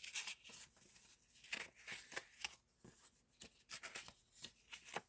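Sheets of paper and sticker sheets rustling and crinkling as they are handled and laid down: faint, irregular crackles and light taps.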